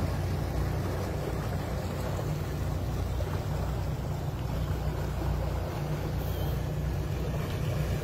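Twin Mercury Verado V12 outboard engines running at low harbour speed: a steady low rumble.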